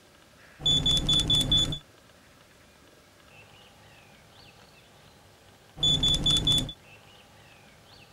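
Carp-fishing electronic bite alarm sounding twice, each time a quick run of high beeps at about five a second lasting around a second, the signal of a fish taking line.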